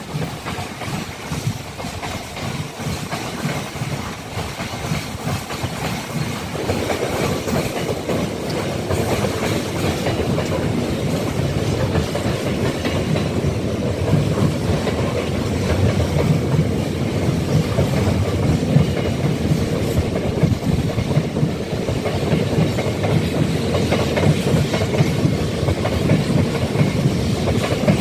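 A train rolling along the rails, wheels rumbling and clattering over the track joints, growing louder about six seconds in.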